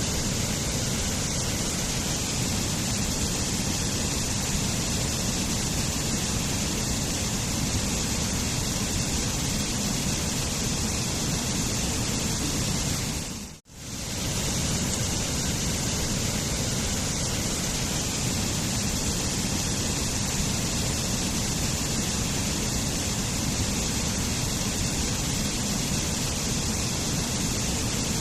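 Steady rushing of a waterfall. About halfway through it briefly drops out and fades straight back in.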